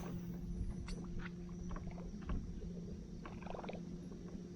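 Small sounds aboard a john boat drifting on a river: scattered light taps and knocks, with a small cluster about three and a half seconds in, over a steady low hum.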